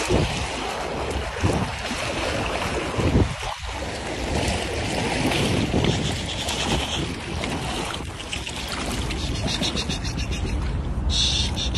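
Water sloshing and splashing as someone wades through shallow water, with wind rumbling on the microphone.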